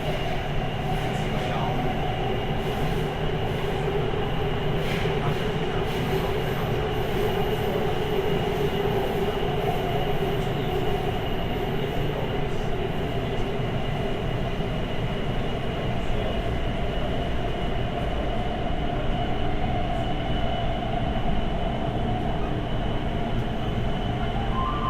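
Interior running noise of a Siemens C321 metro car with GTO-VVVF traction: a steady rumble of wheels on rail with steady tones above it, unbroken throughout.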